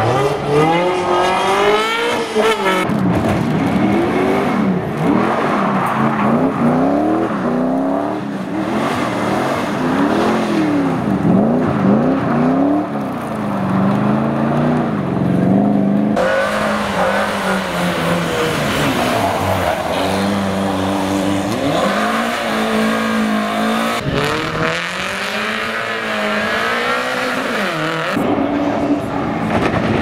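A sports car's engine revving up and down over and over, every second or two, as the car slides and drifts on a loose, dusty surface.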